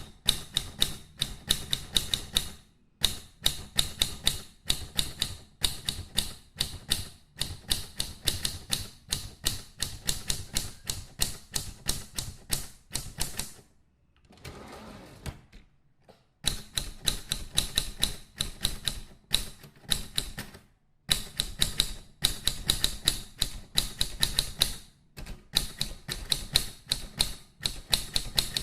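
Mechanical typewriter typing sound effect: rapid keystrokes in runs of several seconds, broken by short pauses, with a softer rushing stretch near the middle.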